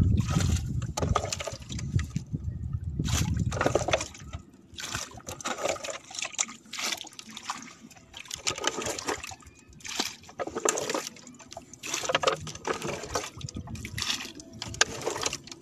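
Water being bailed out of the bottom of a small wooden bangka with a cut-off plastic bottle: scooped up and tossed over the side again and again, in irregular splashes and pours. The boat has taken on a lot of water.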